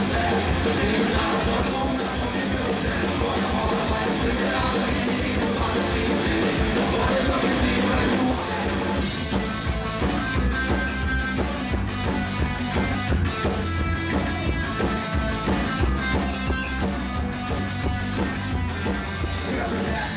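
Live rock band playing loudly: electric guitar, drums, keyboard and trumpet with a male lead singer. About eight seconds in the sound thins out into a steady, clipped beat at about four strokes a second.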